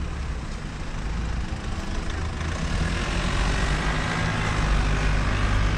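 A car driving past on the street over a steady low road rumble, which grows louder in the second half.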